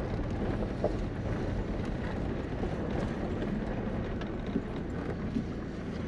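Vehicle engine and road noise, a steady low rumble while driving.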